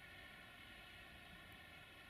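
Very faint, steady noise of a distant freight train's container wagons rolling past, with no distinct clicks or horn.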